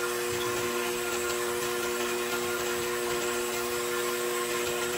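KitchenAid stand mixer's motor running at a steady speed with an even hum, driving a spiralizer attachment that peels, cores and slices an apple.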